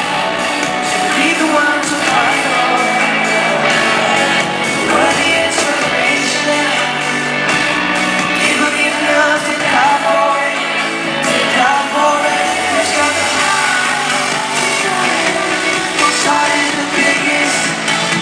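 Live pop song with singing and a steady beat, played loud through an arena sound system.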